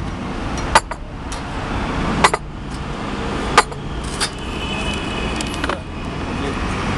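Café crockery and glasses clinking sharply three times, with a few lighter clinks, over steady street traffic.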